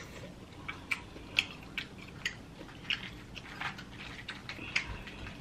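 Close-up eating sounds from a plate of boiled crawfish: chewing mixed with an irregular scatter of sharp clicks and crackles as crawfish shells are handled and picked through.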